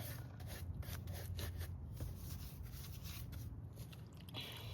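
Paintbrush strokes wiping diesel over the outside of an old Homelite XL12 chainsaw: soft, irregular brushing and rubbing, over a steady low rumble.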